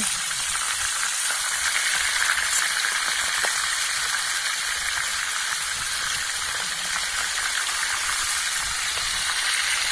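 Traíra fillet frying in hot oil in a pan, with a steady sizzle.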